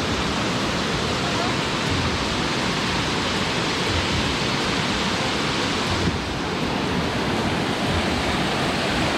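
Waterfall: a steady, even rush of falling water, with the hiss thinning slightly about six seconds in.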